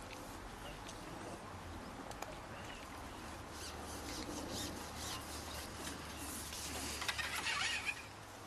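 Light rubbing, scraping and small clicks from a long carbon fishing pole being handled on the bank, with a short flurry of louder, higher scratchy sounds near the end.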